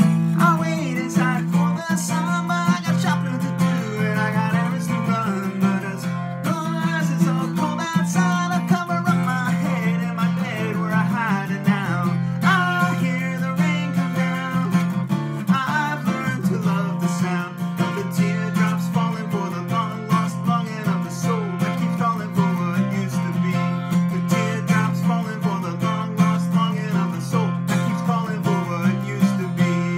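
Steel-string acoustic guitar strummed steadily, with a man singing along.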